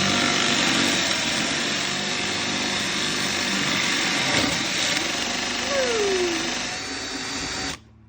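Handheld power tool running steadily at speed while cutting a hinge recess through a hidden-hinge jig. It stops abruptly near the end.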